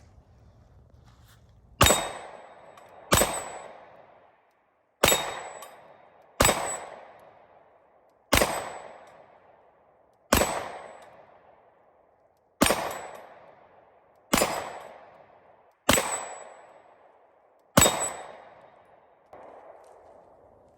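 Ten single gunshots fired one at a time, about one to two seconds apart, each trailing off as it echoes.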